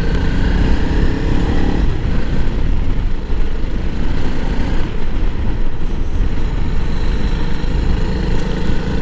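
Honda CRF300L Rally's single-cylinder four-stroke engine running steadily as the bike rides along, its note changing about two seconds in.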